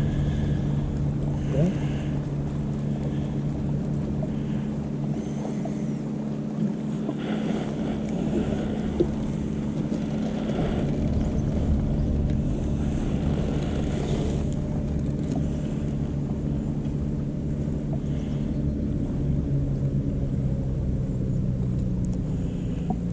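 Electric trolling motor humming steadily as it holds the boat in position, its tone shifting slightly about two-thirds in, over a low rumble.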